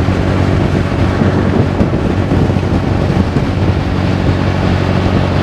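Engine of a motorized outrigger canoe (bangka) running at a steady cruising speed. Its even drone sits under a continuous rush of wind noise.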